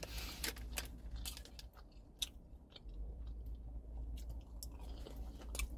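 A person chewing a chicken nugget, with irregular crunching clicks.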